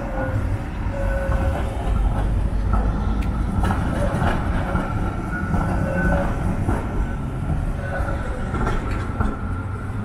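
Zurich VBZ Tram 2000 streetcar passing close by: a steady rumble of steel wheels on the street rails, with a faint whine that comes and goes and a few short clicks from the wheels.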